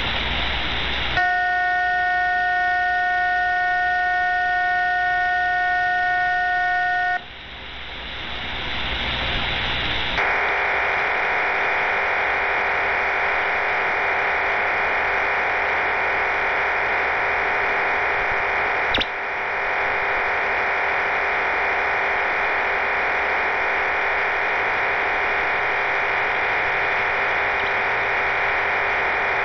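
Shortwave radio reception of the Cuban HM01 numbers station in its digital mode: after a moment of static hiss, several steady tones sound together for about six seconds, then hiss again, and from about ten seconds in a dense, steady, hissing data signal takes over, the station's RDFT data burst. A single click about nineteen seconds in.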